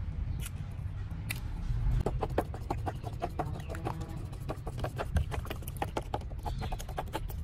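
Chickens clucking, a quick run of short calls that starts about two seconds in, over a steady low rumble.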